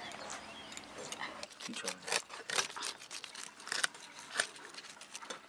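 Fish being scaled on a boti, a fixed upright blade: a string of sharp, irregular scrapes and clicks as the scales are scraped off against the metal.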